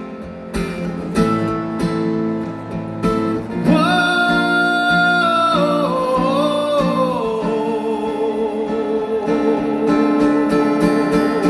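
Live pop-ballad music: acoustic guitar playing chords under a long held melody note that slides down in pitch partway through.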